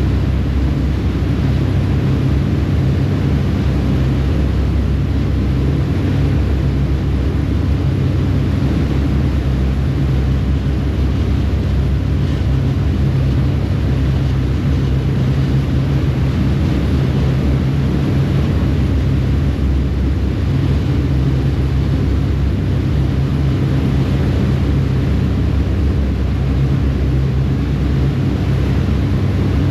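A ferry's engines running steadily at cruising speed, a deep even drone, with the rushing wash of the propeller wake churning behind the stern.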